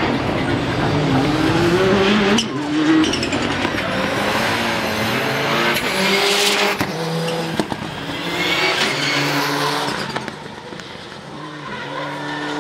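Division 1 rallycross cars racing at full throttle, their engines revving up and dropping back through the gears again and again, with a few sharp cracks and tyre noise over the engines. They fade a little, then grow louder again near the end as cars come close.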